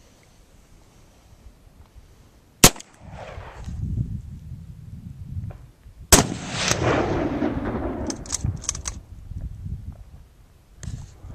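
Two shots from an 1895 Nagant 7.62 mm revolver, about three and a half seconds apart, each followed by a rolling echo. A few light clicks come after the second shot.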